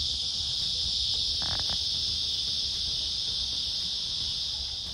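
Steady, unbroken high-pitched drone of an insect chorus, with a few faint clicks about one and a half seconds in.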